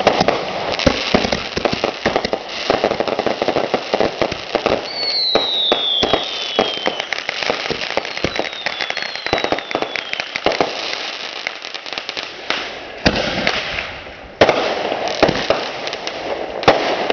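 Fireworks finale: a dense, rapid barrage of bangs and crackling bursts. Twice in the middle, high whistles fall in pitch.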